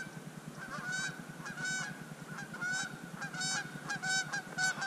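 Canada geese honking, repeated two-note honks that come more often and louder toward the end, over a steady low rumble.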